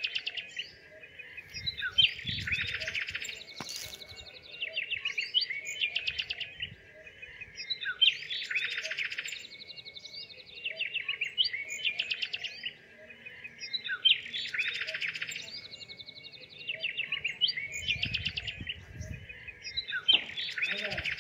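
Small birds chirping and twittering in quick runs of high notes, the same pattern coming back about every six seconds like a looped recording. A brief low rumble comes in twice, a couple of seconds in and near the end.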